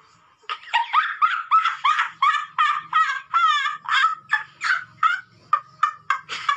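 Rapid series of short, honking calls, about three a second, starting about half a second in.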